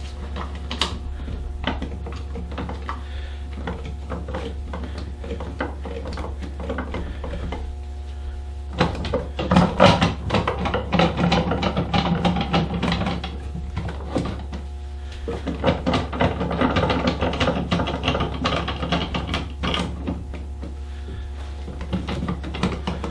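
Bessey K Body Revo bar clamps being tightened by hand, their screw handles turned in quick strokes. This gives dense clicking and rasping in bursts, loudest from about nine to thirteen seconds in and again from about sixteen to twenty seconds.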